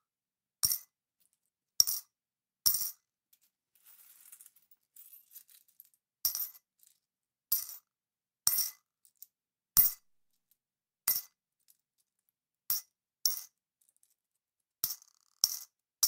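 Coins dropped one at a time into a small pot, each landing with a sharp metallic clink and a brief ring. About a dozen drops come roughly a second apart, with softer scattered clicks of coins settling between about four and six seconds in.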